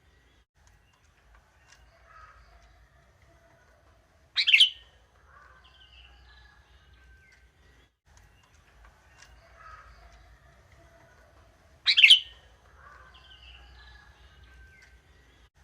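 Sooty-headed bulbul (kutilang) calling: two loud, short calls about seven seconds apart, with fainter chirping between them.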